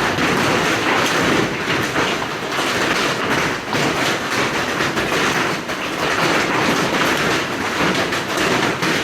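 Large hailstones falling hard, a dense, continuous clatter of countless impacts.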